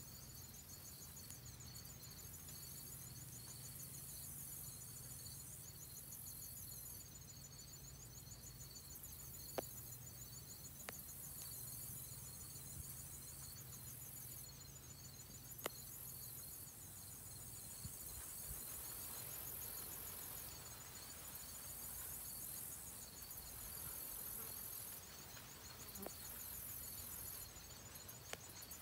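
Faint insect chorus: crickets trilling in fast, even pulses, with a higher buzzing that comes and goes in stretches. A low hum underneath drops away a little over halfway in, and a couple of brief clicks stand out.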